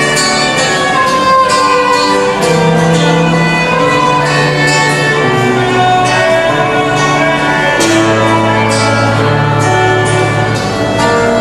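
Music from a bowed string ensemble: violin-like melody notes held over a sustained low bass line.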